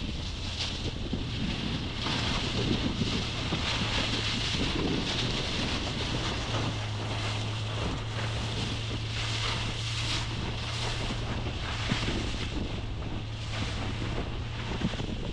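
Heavy wind buffeting the microphone on a moving motorboat, over the steady low drone of the boat's engine, which grows stronger about six seconds in, and the rush of water.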